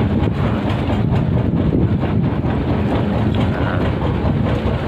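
Wind buffeting a phone microphone on a small boat at sea: a loud, steady low rumble.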